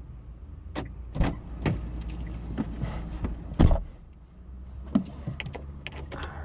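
Car door being opened and a person getting into the driver's seat: a series of clicks and knocks, with one heavy thump about three and a half seconds in, over a low steady hum.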